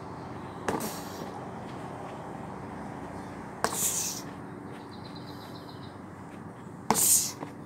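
Three spinning kicks hitting a stack of rubber tyres, each a sharp smack followed by a short hiss, about three seconds apart, over a steady low hum.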